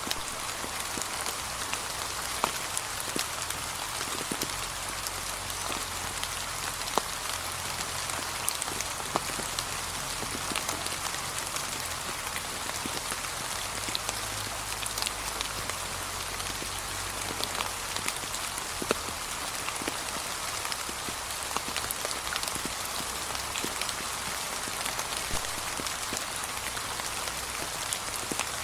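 Gentle steady rain falling on fallen autumn leaves, an even patter with many individual drops ticking sharply on top.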